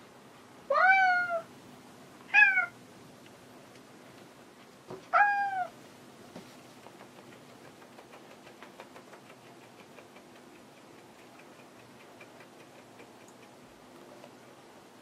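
Domestic cat meowing three times, each call rising then dipping at the end, the first and third longer than the second. A faint, quick ticking follows for several seconds.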